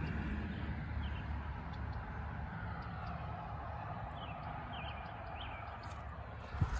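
Outdoor background with a steady low rumble of wind on the microphone and a few faint, short bird chirps in the middle, then a single sharp knock near the end.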